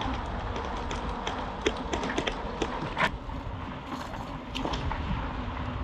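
Mountain bike being ridden over a rough track: irregular clicks and rattles from the bike, one sharper knock about three seconds in, over a steady low wind rumble on the microphone.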